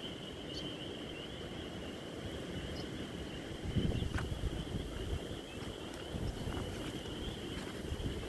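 Spring peepers calling in a dense chorus: a steady high-pitched band of peeping, with a low rumble of wind on the microphone underneath that swells about four seconds in.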